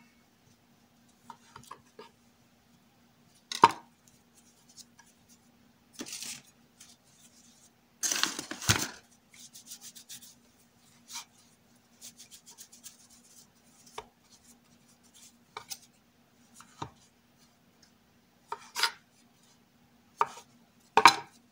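Kitchen knife knocking on a wooden cutting board as soft dough is handled and cut into pieces: scattered single knocks and brief scrapes, the loudest a short scraping burst about eight seconds in. A faint steady low hum lies underneath.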